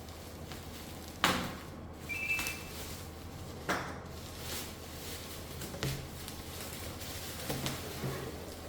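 Mixer grinder and its packaging being handled during unwrapping: two sharp knocks, a short high squeak with some rustling between them, then a few lighter knocks near the end.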